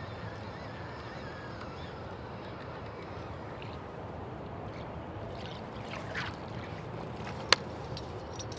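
A kayak being paddled on a river: steady water and wind noise, with one sharp knock about seven and a half seconds in.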